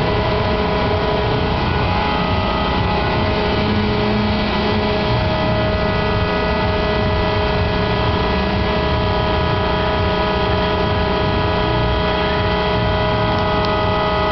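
The drive motor of a mechanical pirate ship running at a steady speed: a constant whine of several steady tones over an even mechanical noise, unchanging throughout.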